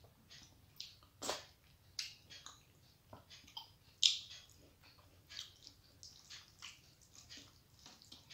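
Close-up eating sounds: wet mouth smacks and chewing of rice and dal eaten by hand, in irregular short clicks, with louder smacks just over a second in and about four seconds in.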